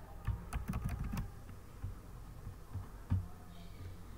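Typing on a computer keyboard: a quick run of keystrokes in the first second or so, then a few single clicks.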